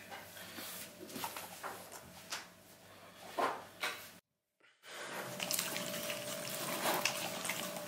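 Small dogs eating treats from a hand: wet licking, smacking and chewing. It is scattered at first, breaks off briefly about four seconds in, then comes back as a denser run of wet licking and chewing from two dogs at once.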